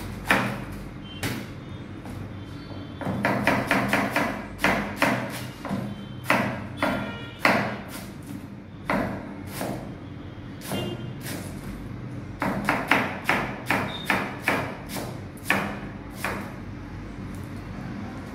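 Kitchen knife chopping cabbage on a plastic cutting board: sharp knocks of the blade against the board, in runs of quick chops about three seconds in and again about twelve seconds in, with single cuts between. A steady low hum lies underneath.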